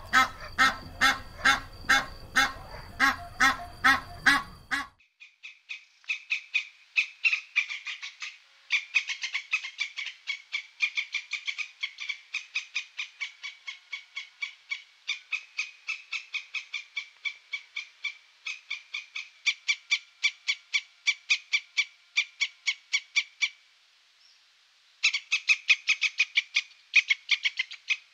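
A domestic goose honking in a fast, even series of loud calls. About five seconds in this gives way to an eastern gray squirrel calling in a long run of short, rapid chirps, about four or five a second, broken by a few short pauses and one longer pause late on.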